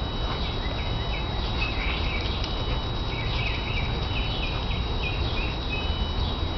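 Small birds chirping in short, repeated high notes, some of them gliding down, over a steady low rumble.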